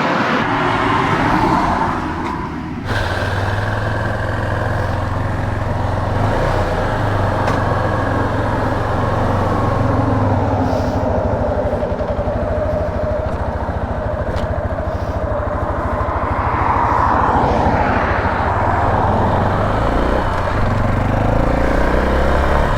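Motorcycle engine running while riding, with wind and road noise. Its pitch rises and falls gently with speed.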